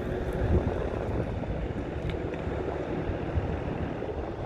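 Wind buffeting the microphone: a steady low rumbling rush that swells and fades in gusts.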